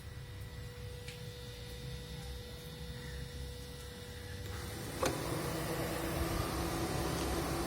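2015 Toyota Prius Alpha's air-conditioning compressor noise: a low steady hum, then a click about five seconds in and a louder, steady droning tone. This is the noise the owner finds too loud, worse in hot weather.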